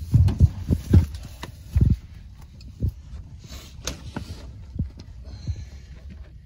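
Dull metal clunks and knocks from an old truck's cab being handled around the steering wheel and dash, a quick run of them in the first two seconds, then scattered light clicks and rattles.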